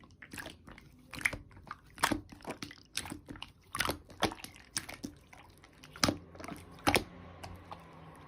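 Slime being squished and pressed by hand, giving irregular sharp clicks and crackles, one or two a second.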